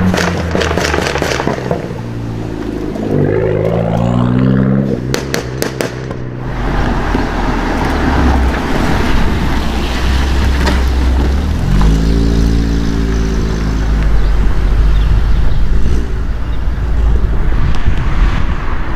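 Performance car exhausts accelerating, rising in revs. A rapid burst of sharp crackles and pops comes about five seconds in, then a deep exhaust rumble with another climb in revs around twelve seconds in.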